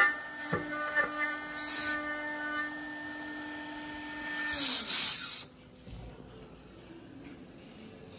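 Door lock and hinge hole drilling machine running with a steady tone, with a few light knocks in the first two seconds. About five seconds in the tone falls as the machine winds down, a short loud hiss comes with it, and a faint hum is left.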